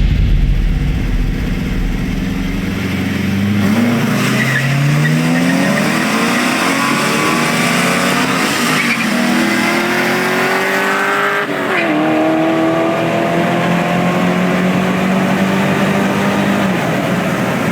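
Performance car engine accelerating hard: its note climbs for several seconds, drops sharply at a gear change about twelve seconds in, then climbs more slowly.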